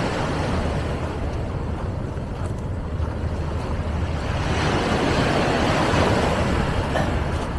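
Wind buffeting the microphone in a steady low rumble, with a broad rush of noise that swells and fades about two-thirds of the way through.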